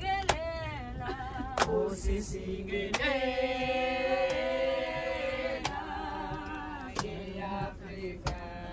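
Group of women singing together in chorus, with long held notes, and a sharp clap or beat about every second and a half.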